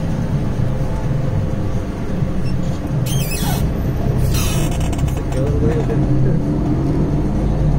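Semi-truck diesel engine running, heard from inside the cab as the truck rolls slowly, with two short hisses about three and four seconds in.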